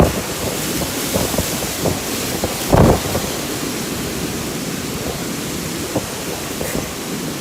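Thunderstorm with heavy rain and strong wind, a steady loud noise, with one louder low gust or rumble about three seconds in and a few short knocks.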